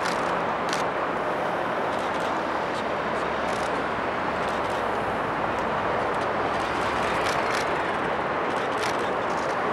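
Steady roar of city traffic and trains, with scattered sharp clacks at irregular intervals.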